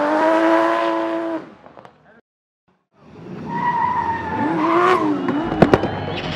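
Drift car engine held at high revs with tyre squeal, fading out about a second and a half in. After about a second of silence it comes back with its pitch rising and falling, two sharp cracks, and a low drone coming in near the end.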